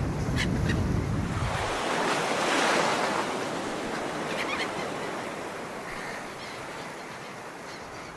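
Cartoon sound effect of water surging as a giant sea monster rises out of the sea: a low rumble at first, then a rush of water swelling about two to three seconds in and slowly dying away.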